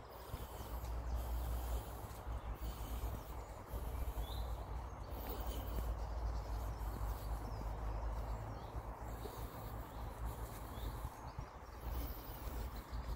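Outdoor ambience: a steady low rumble of wind on the microphone, with a bird giving a short chirp every couple of seconds.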